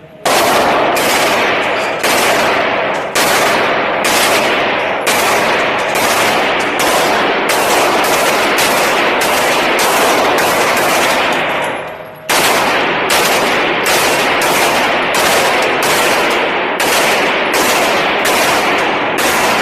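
Short-barrelled AR-style rifle fired in quick semi-automatic strings, two or three shots a second, with one brief break a little past halfway. Each shot rings on in the echo of the concrete indoor range.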